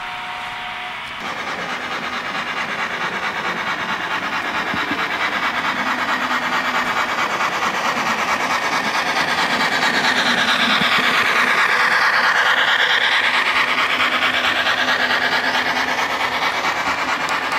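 HO scale model train running along the track, its wheels and drive making a rapid, fine, continuous rattle. It starts about a second in and grows louder for the first ten seconds or so as the train comes closer, then holds steady.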